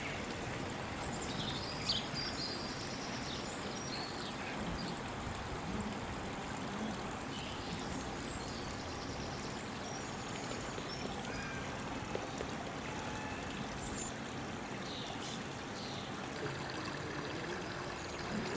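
Water of a small garden stream running steadily, with a few faint short high sounds now and then.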